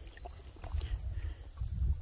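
Low, gusty rumble of wind buffeting the phone's microphone, rising and falling irregularly.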